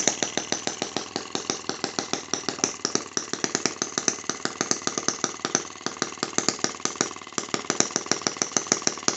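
ET5 miniature model engine running steadily, firing in a fast, even train of sharp pops, about six or seven a second.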